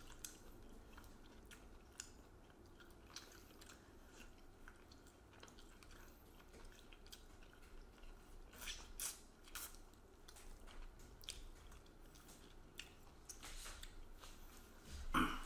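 Two people biting and chewing fried chicken wings held in their hands: quiet, scattered wet chewing and crunching sounds that come in clusters, with one louder crunch near the end.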